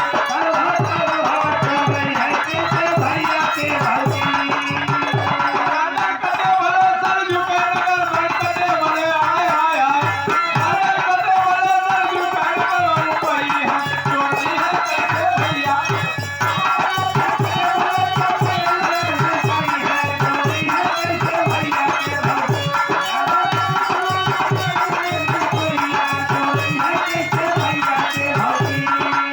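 Birha folk music: a dholak beating a quick, steady rhythm under a harmonium melody.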